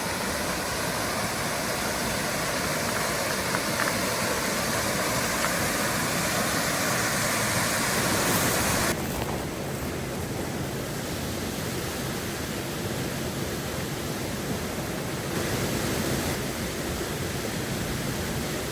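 Steady rush of water in a mountain stream. About nine seconds in it changes abruptly to a softer, duller rush.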